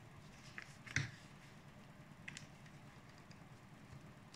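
Faint handling of a pen and paper on a clipboard: a few soft clicks and taps, the clearest about a second in, over quiet room tone.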